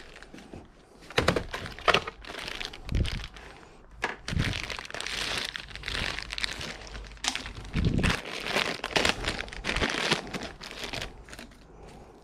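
Irregular rustling and crinkling with a few short knocks.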